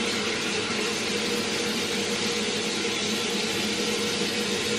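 Bathroom sink tap running steadily while a face is washed: an even rushing of water with a faint low hum under it.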